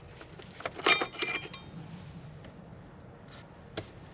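A short clatter of clinks and knocks with a brief ring about a second in, then quieter handling noise and a faint knock near the end, from handling the oil jugs and makeshift bottle funnel while refilling the engine oil.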